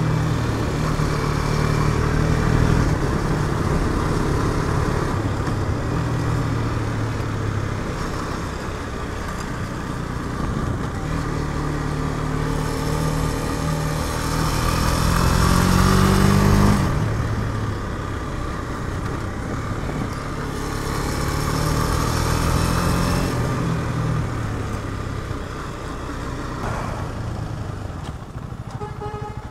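KTM Duke 250 single-cylinder engine under way, its revs climbing for several seconds with wind rush rising alongside. About halfway through the throttle shuts off suddenly, then the engine runs at lower revs and eases off as the bike slows near the end.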